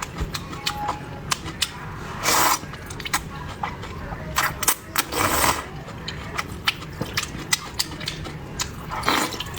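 Close-miked eating sounds: rapid crisp clicks and crunches of chewing, with three louder, longer noisy bites, at about two and a half seconds, five and a half seconds, and near the end.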